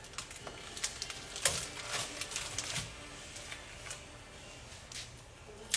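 Irregular sharp clicks and light knocks of hands working with kitchen utensils at a counter, with a few clustered together about one and a half to three seconds in.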